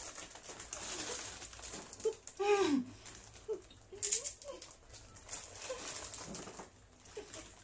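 Muffled hums and short wordless vocal noises from people with their mouths full of dry water crackers, with chewing and the crinkle of the plastic cracker packets.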